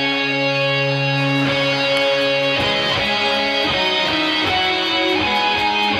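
Background music: a guitar-led track with held chords that change every second or so.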